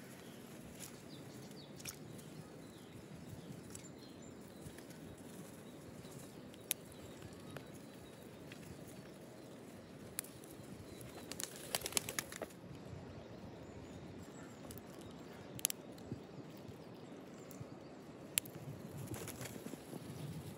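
A red squirrel clambering on a spruce trunk and taking a nut from a gloved hand: scattered sharp clicks and scratches, with a quick flurry of them a little past halfway, over faint outdoor background.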